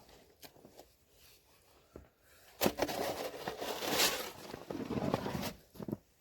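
Snow shovel scraping and pushing through snow in one long stroke lasting about three seconds, after a few faint crunches.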